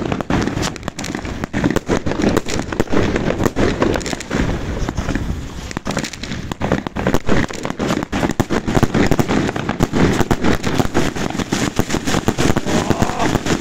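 Large firework battery firing a dense, unbroken barrage of bangs and crackles.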